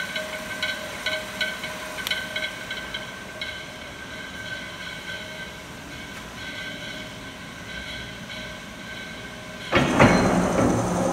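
Verson 60-ton press brake running: a steady mechanical whir with a regular tick about three times a second for the first few seconds, which settles to a quieter, even hum. Near the end a sudden, much louder rumble with a low hum starts up.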